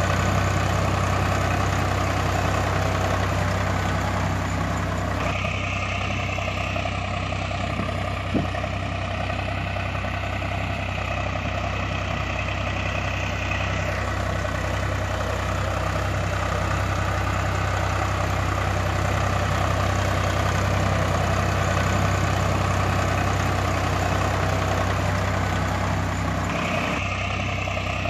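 Recorded tractor engine sound: a steady, heavy engine drone at idle, added as a sound effect for a toy tractor. A higher whine joins about five seconds in, drops out about fourteen seconds in, and comes back near the end.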